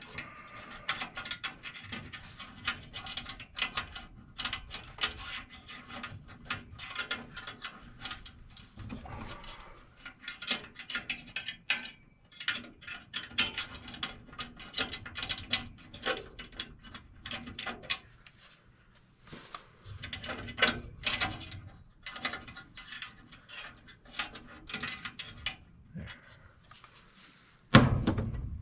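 Quick runs of metallic clicking and rattling from hand tools and sheet-metal parts being worked on a gas furnace, stopping and starting, with one loud heavy thump near the end.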